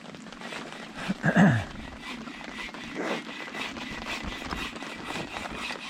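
Heavy rain pattering steadily as many fine ticks. About a second in, a short low voice sound falls in pitch.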